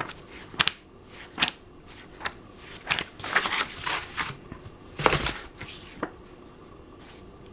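Pages of a thick hardback German–English dictionary being flipped by hand: a series of short papery swishes. About five seconds in there is a duller knock as the book is moved.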